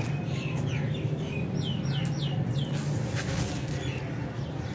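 Small birds chirping, a quick run of about five short downward-sliding chirps, over a steady low hum.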